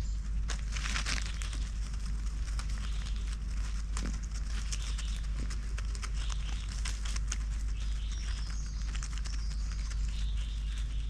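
Dry leaf litter crackling and rustling under lemurs walking and foraging close by, a steady run of small crackles, over a steady low rumble.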